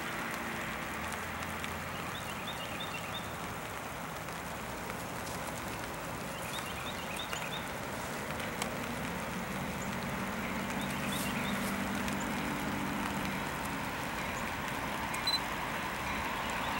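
Distant approaching diesel freight train led by a GE D8-40CW locomotive: a low, steady engine drone comes in about halfway through over a steady outdoor hum, with a few faint chirps.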